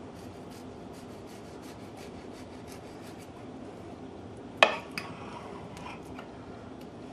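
Knife sawing through the browned crust of a meatloaf, a run of faint rasping scrapes, with a fork holding it. A little over halfway through comes a sharp clink of metal on the plate that rings briefly, then a smaller one.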